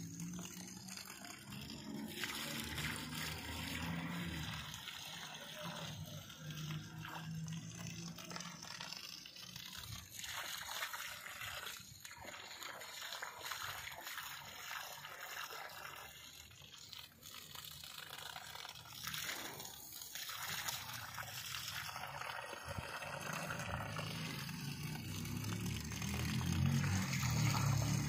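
Water from a garden hose splashing and gurgling into a muddy puddle around a shrub, a steady, wavering patter. A low rumble underneath grows louder near the end.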